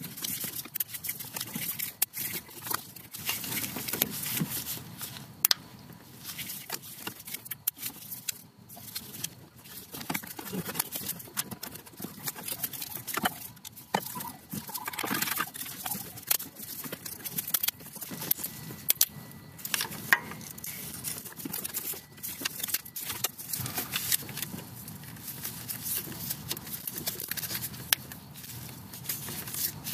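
Fast, irregular clicking, crackling and clinking of channel-lock pliers crushing a brittle plastic coolant T-fitting and of the pieces being worked loose, sped up five times.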